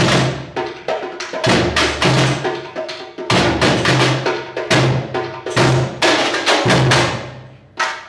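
Percussion group playing a samba-style rhythm. Large bass drums strike deep beats about once a second under a quick, dense pattern of smaller drums and metal shakers. The playing thins out and drops away near the end.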